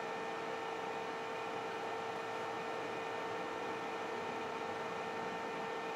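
Steady background hum and hiss, with a few fixed pitched tones held throughout and no change.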